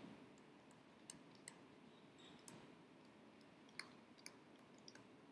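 Near silence with about seven faint, scattered clicks from handwriting being entered on a computer drawing tablet.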